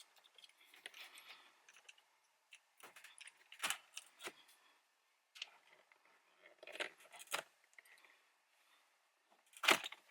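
Plastic trim-removal tool prying out a Toyota RAV4 climate-control panel: scattered plastic clicks and scrapes as the clips give, with the loudest snap near the end.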